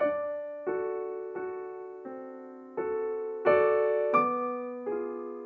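Slow, gentle piano music: single notes and chords struck one after another, a new one roughly every half second to second, each left to ring and fade.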